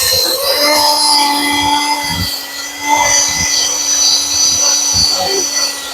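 Shop compressed air blowing through an air nozzle: a steady hiss and whine with a low hum underneath and a few light knocks, blowing out the corroded bearing bore.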